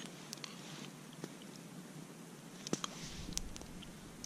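Quiet eating: chewing, with a sharp click at the start and a few light clicks and taps of a spoon against an enamel camp mug.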